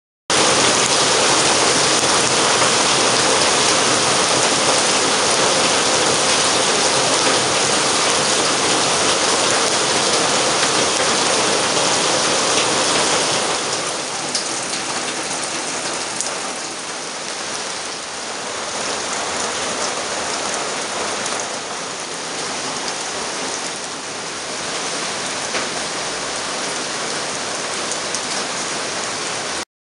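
Heavy tropical rain pouring steadily onto dense foliage and broad palm fronds, an even hiss of countless drops. It becomes somewhat softer about halfway through.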